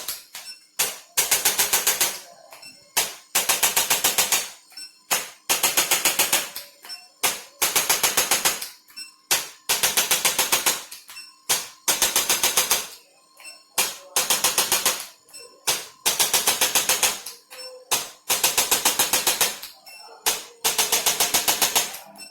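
Handheld electric percussion adjusting instrument clattering out rapid thrusts, about eight or nine a second, in bursts of about a second that repeat roughly every two seconds.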